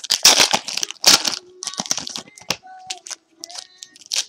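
Foil trading-card pack wrappers crinkling and crackling in the hands, in a quick irregular series of rustles.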